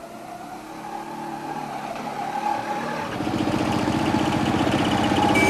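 A motor vehicle engine running, growing steadily louder with a pulsing rumble from about three seconds in.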